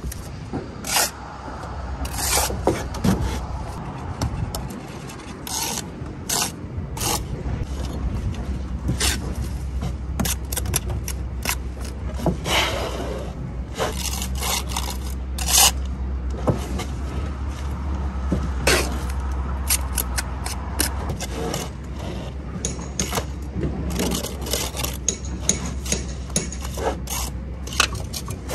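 Steel brick trowel scraping mortar along brickwork and tapping bricks down into their mortar bed: an irregular run of short scrapes and sharp knocks over a steady low rumble.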